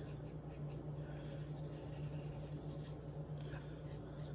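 Felt-tip Crayola marker scribbling quietly on paper as a drawing is coloured in, over a steady low room hum.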